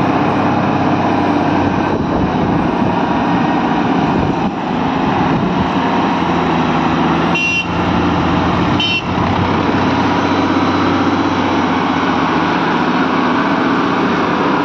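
Heavy-haul Volvo FH truck's diesel engine running hard and steadily under a very heavy load as it crawls past, with a farm tractor's engine adding to the noise. Two short, sharp high-pitched sounds come about halfway through.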